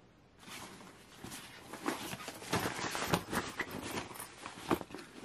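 Fabric rustling with scattered knocks and thumps as a tennis shoe is taken out of a racket bag, starting about half a second in, with the sharpest knock near the end.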